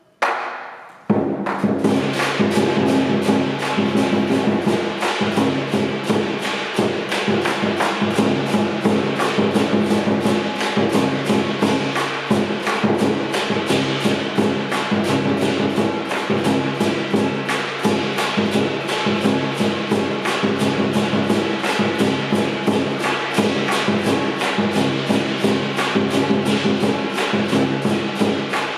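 Lion dance percussion: a large lion dance drum beaten in a fast, steady beat, with several pairs of hand cymbals clashing along. After one strike and a short pause, the full ensemble comes in about a second in.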